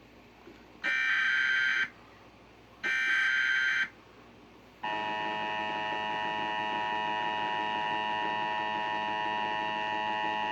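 Emergency Alert System SAME header: two bursts of warbling data tones, each about a second long and two seconds apart. About five seconds in, the steady two-tone EAS attention signal starts and holds, heralding a tornado warning.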